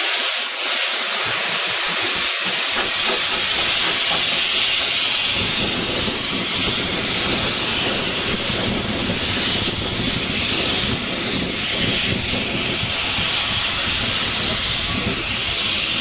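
Steam hissing loudly and steadily from the small 0-4-0T tank engine Dorking Greystone Lime Co. No. 3 "Captain Baxter", with a deeper rumble joining the hiss about five seconds in.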